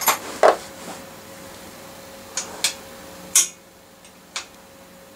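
Metal hand tools clinking and knocking in a tool tray as one is picked out and put to work, a handful of separate short clinks, the loudest a little past halfway.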